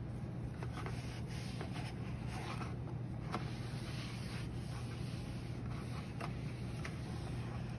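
Scattered rubbing and scraping of a sponge wiping clay out of a potter's wheel splash pan, over a steady low hum.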